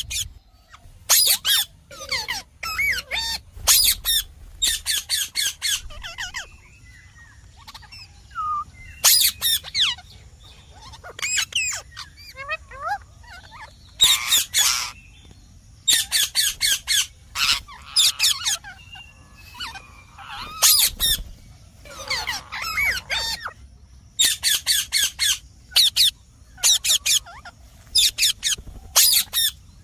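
Indian ringneck parakeet screeching in runs of short, harsh calls, several in quick succession, with quieter pauses between runs.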